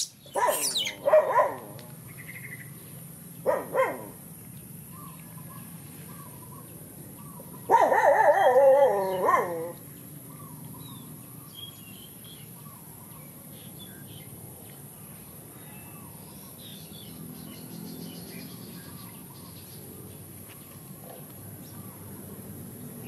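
A dog barking and yelping in three short bouts, about a second in, near four seconds, and a longer run around eight to ten seconds; between them only low background noise.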